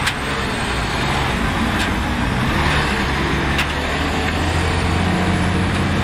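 Diesel engine of a Volvo articulated dump truck running steadily as the loaded truck drives over rough ground, with a few light knocks about two seconds apart.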